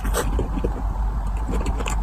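Close-miked chewing: a quick, irregular run of wet smacks and crunches of food being eaten, over a low steady hum.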